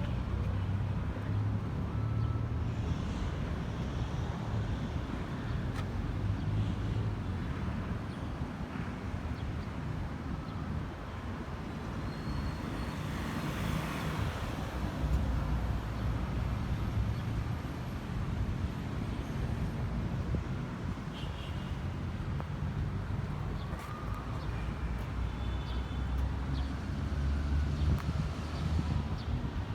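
Outdoor city street ambience: a steady rumble of road traffic, with one vehicle passing by, louder and then fading, about halfway through. A few faint short high tones sound in the later part.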